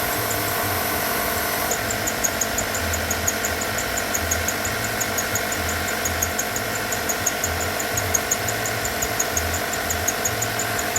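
Subaru Levorg running with a steady drone. About two seconds in, a rapid train of sharp, high-pitched ticks starts, about four to five a second; the owner questions it as an abnormal noise.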